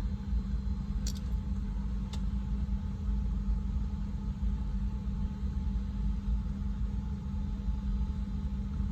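Steady low background hum, with two faint short clicks about one and two seconds in.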